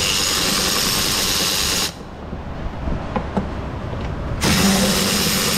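Cordless power driver running in two steady spins of about two seconds each, a few seconds apart, backing out the fan shroud's bolts.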